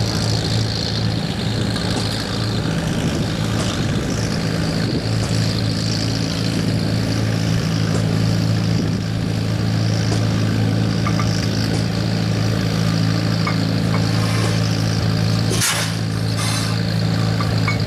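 An engine running steadily at an even speed, with a short burst of hiss near the end.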